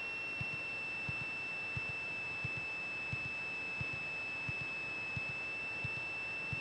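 Steady high-pitched electrical whine in the aircraft's intercom and headset audio, with a faint low tick about every two-thirds of a second.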